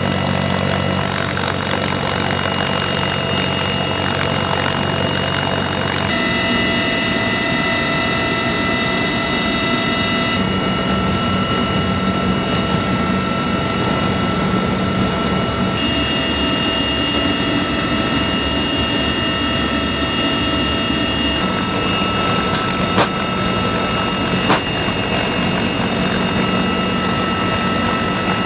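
Loud steady cabin noise inside a CH-53E Super Stallion heavy-lift helicopter in flight: a drone of engines and rotor with several steady high whining tones. The sound jumps abruptly a few times where the shots change, and two sharp clicks come near the end.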